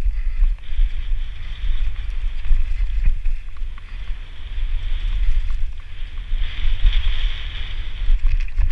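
Wind buffeting a helmet camera's microphone during a fast downhill mountain-bike descent, with a steady hiss of tyres rolling over a dirt trail. The hiss swells about two-thirds of the way through, and a few knocks from the bike over rough ground come near the end.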